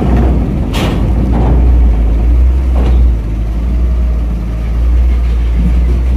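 Heavy truck engine running with a deep, steady rumble, and a brief sharp noise about a second in.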